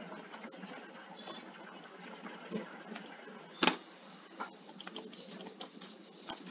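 Computer keyboard typing and mouse clicks: scattered light clicks, with one louder click about three and a half seconds in, over a faint steady hiss.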